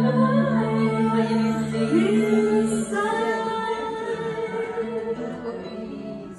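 A woman singing long held notes into a karaoke microphone, sliding up into each one, over a karaoke backing track. About three seconds in the low accompaniment drops out, and the sound fades gradually toward the end.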